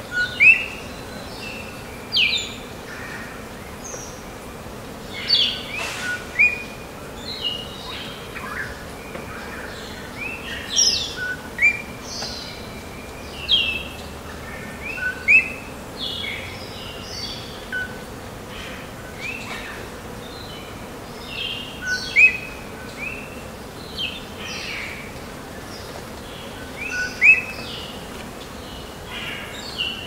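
Tropical forest ambience: many short, high chirps and rising whistled calls of birds, a few every couple of seconds, over a steady background hiss.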